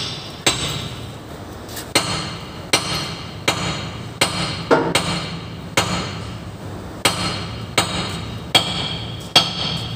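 Hammer blows on steel at a dump truck's rear wheel hub: about a dozen sharp, ringing metal strikes at an even pace, roughly one every three-quarters of a second, over a steady low hum.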